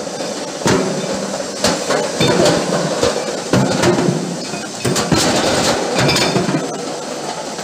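Steel connecting-rod forgings knocking against each other and the steel chute of a tumblast shot-blasting machine: irregular metallic clanks, at times several a second, over steady machine noise.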